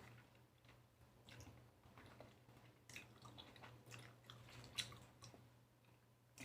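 Faint, irregular chewing and wet mouth clicks of someone eating fresh lychees, over a low steady hum.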